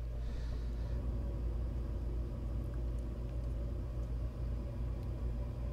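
Steady low electrical hum over faint background hiss, with a soft, brief higher hiss about half a second in.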